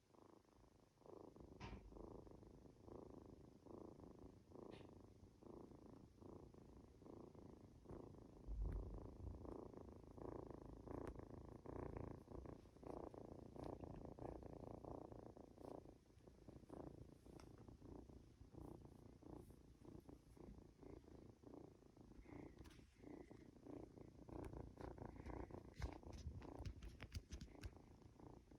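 Norwegian Forest Cat kitten purring softly and steadily while being stroked, with a low bump about eight seconds in.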